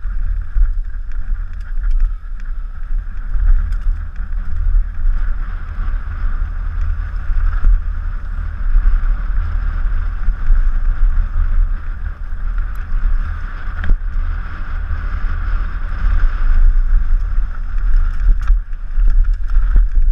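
Downhill mountain bike descending a rough trail, heard through an action camera's microphone: a continuous low rumble of wind and vibration buffeting the mic over tyre noise on dirt, with occasional sharp knocks as the bike hits roots and rocks.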